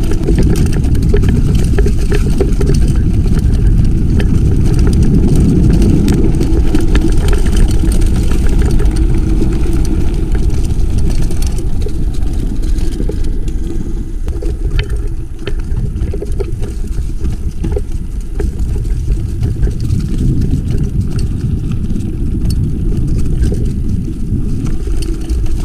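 Mountain bike riding over a rocky trail: a loud, steady rumble with constant rattling and knocking from the bike, easing a little about halfway through.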